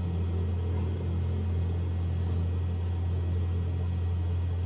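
A steady low hum with faint background hiss, unchanging throughout.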